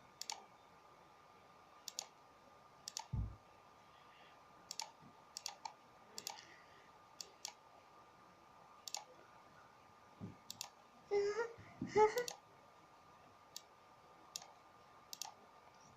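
Scattered sharp clicks, roughly one a second and irregularly spaced, over a faint steady high hum. There is a single dull thump about three seconds in and a brief voice sound around eleven to twelve seconds.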